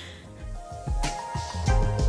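Background music: held notes over a bass line that swell in about half a second in, with a percussion hit about a second in.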